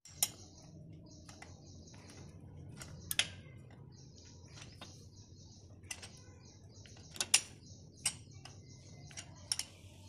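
Irregular metallic clicks and taps of a flat-head screwdriver levering between a motorcycle's rear brake pad and disc, pushing the caliper piston back in to make room for new pads. A few sharper clicks stand out, about three and seven seconds in.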